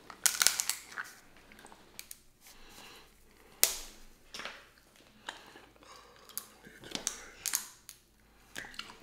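Snow crab leg shells cracking and snapping as they are broken apart by hand: a series of sharp, irregular cracks, the loudest about three and a half seconds in.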